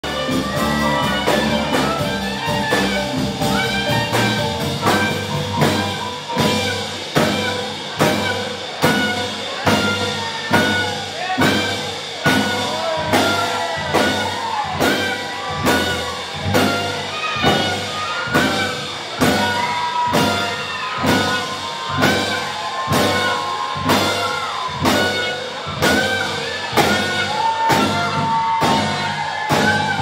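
Live Afro-Cuban jazz band playing: a saxophone melody over electric bass, keyboard, drum kit and congas, with a strong, steady beat.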